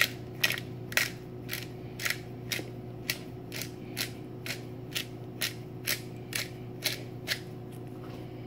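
Hand-held pepper grinder twisted back and forth, each twist a short grinding rasp, about two a second, with the strokes stopping near the end.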